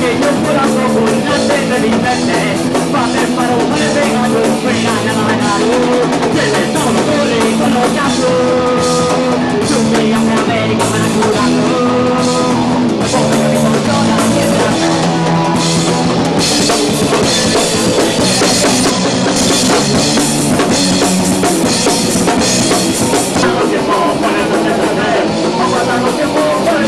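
A rock band playing live and loud, with a drum kit prominent under sustained guitar notes, continuing without a break.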